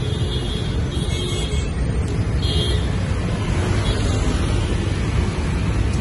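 Busy street traffic, mostly motorbikes with some cars: a steady rumble of engines and tyres, with a few short high beeps in the first three seconds.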